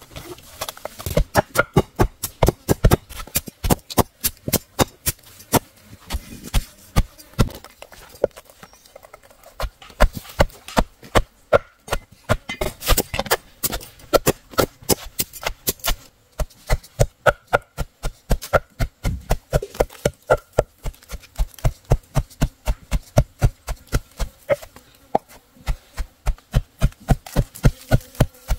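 Fast, regular chopping strokes, about three to four a second, with a couple of short pauses.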